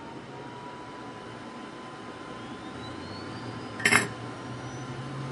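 Metcal HCT2-200 hot air rework pencil blowing air: a steady hiss with a faint whine, and a fainter high tone slowly rising in pitch. A sharp click about four seconds in.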